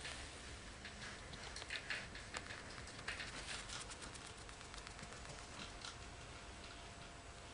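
Pet rat bruxing: faint, irregular runs of quick teeth clicks while it is stroked, usually a sign of a relaxed, content rat.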